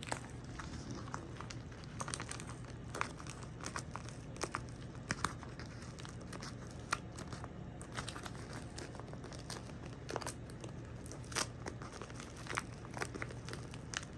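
Packaging being opened by hand: irregular crinkling and tearing, with scattered short crackles, over a faint steady low hum.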